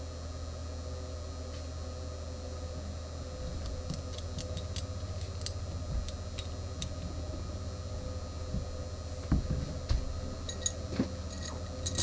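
A steady low hum, with scattered light clicks and taps from small handling. A few louder knocks come near the end.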